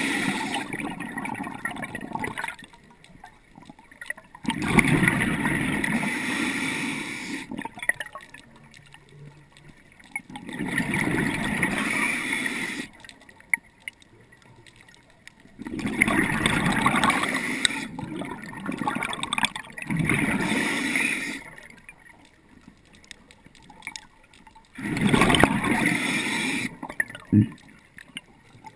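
Scuba diver's exhaled breath bubbling out of the regulator in noisy bursts of two to three seconds, repeating about every five seconds with quieter pauses for the inhale between.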